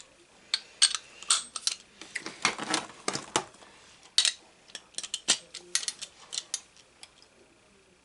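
Icon 1/2-inch drive chrome steel socket extensions clinking and clicking as they are fitted together end to end: an irregular run of sharp metal clicks that dies away near the end.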